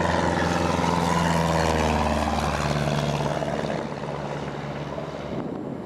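Cessna 172's piston engine and propeller running past. Its pitch drops about two seconds in, then it grows fainter as the plane moves away.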